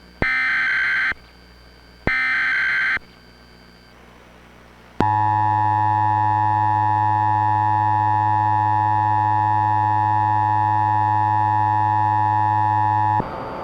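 Emergency Alert System SAME header: two buzzy data-tone bursts of about a second each. After a short gap comes the steady EAS two-tone attention signal, held for about eight seconds before it cuts off, leaving a hiss near the end.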